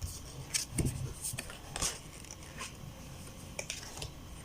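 Thin tarot cards being handled and laid down: a few light paper rustles and taps, with a soft thump just under a second in.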